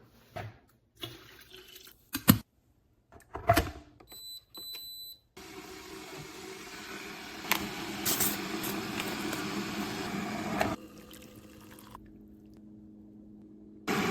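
Clicks and knocks, the loudest a sharp click, then two short electronic beeps from the Cuisinart PerfecTemp electric kettle's controls. Several seconds of steady rushing water noise follow, then a quieter hum that cuts off abruptly.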